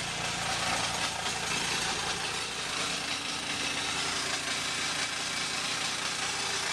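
Geo Metro engine running steadily in fifth gear with its front wheels spinning freely off the ground, the drivetrain and tyres giving an even hum. The owner is listening for a faint speed-dependent knocking, which he suspects comes from a bad CV axle or the brakes.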